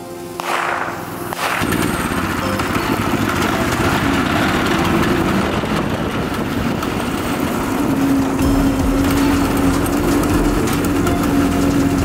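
Homemade go-kart's small engine running while the kart drives over rough ground; its steady note grows louder about eight seconds in. Music ends about a second and a half in.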